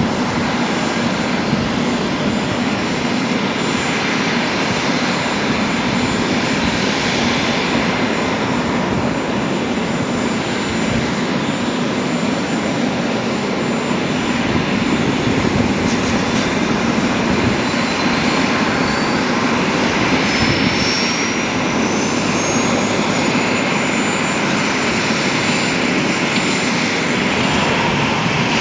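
Jet aircraft engines running steadily, with a faint thin whine rising in pitch about halfway through.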